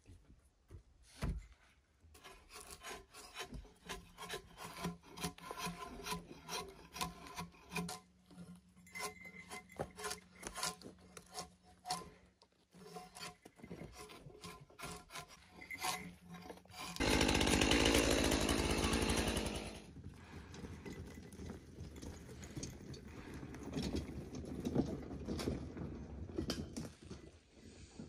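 Repeated scraping and sawing strokes of hand tools working a log. About two-thirds of the way through comes a loud rushing noise lasting a few seconds, followed by quieter rubbing and knocking.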